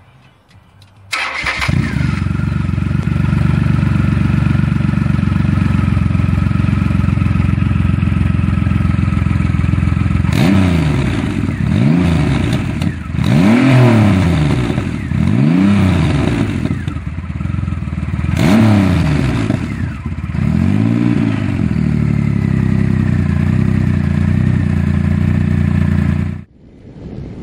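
Triumph Rocket III's 2.3-litre three-cylinder engine starting about a second in and idling, then revved in about six quick throttle blips, each a rising and falling note, before settling back to idle. The sound cuts off suddenly near the end.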